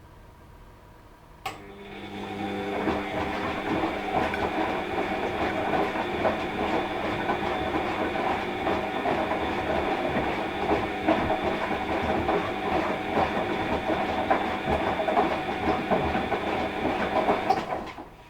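Washing machine drum turning in its wash cycle. A click comes about a second and a half in, then the motor runs up over a second and turns the drum steadily, with a hum and a dense rattling churn. It stops shortly before the end.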